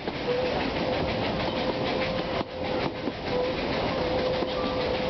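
Narrow-gauge steam train running, heard from an open-sided carriage: wheels clattering over the rail joints and the carriages rattling, with a thin steady whine running through most of it.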